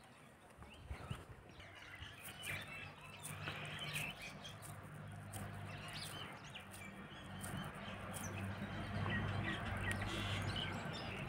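Small birds chirping and tweeting in the background, with a low steady hum that grows louder in the second half.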